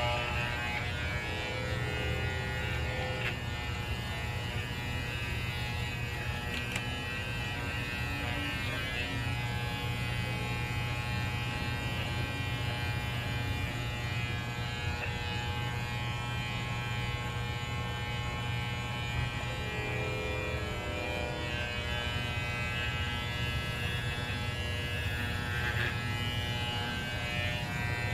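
Electric hair clippers running steadily at one constant pitch while shaving a small dog's coat.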